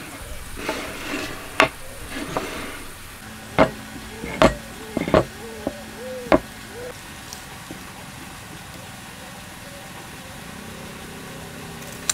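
Wooden blocks handled on a wooden workbench: wood sliding and rubbing at first, then about five sharp knocks a second or so apart as the pieces are set down and knocked against the bench.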